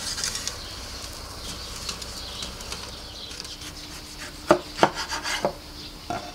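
A broad kitchen knife chopping grilled bell peppers on a bamboo cutting board: a quick run of sharp knocks of the blade on the wood about four and a half seconds in, and one more near the end.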